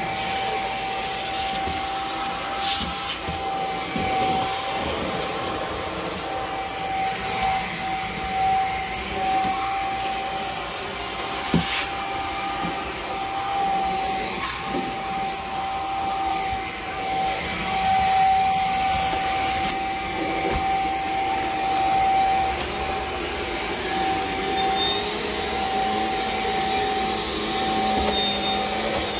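Upright vacuum cleaner running steadily on carpet, with a constant high motor whine over the hiss of the suction and brushroll. A few brief knocks come through, the sharpest about twelve seconds in.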